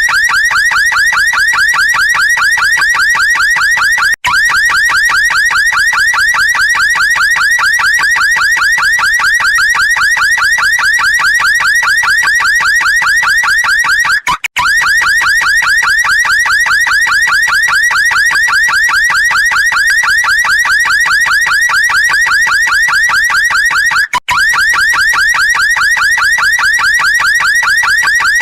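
Electronic car alarm siren sounding continuously with a rapid, evenly repeating warble. It breaks off for an instant about every ten seconds and starts straight up again.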